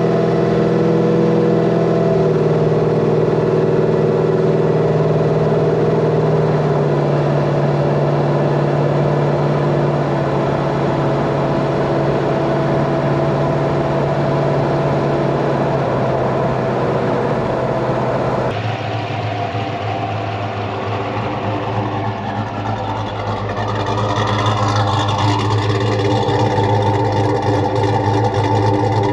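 A car engine running steadily at idle, its pitch stepping a few times; after a sudden change partway through, the engine revs up with rising pitch near the end.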